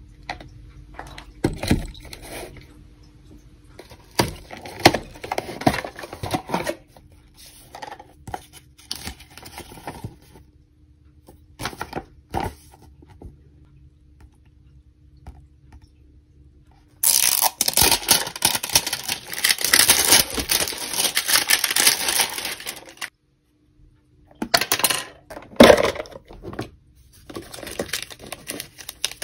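Toy packaging handled close up: scattered taps, clicks and rustles of the cardboard box and paper insert, then about halfway through some six seconds of loud, dense crinkling and tearing of wrapping. A foil sachet crinkles as it is squeezed near the end.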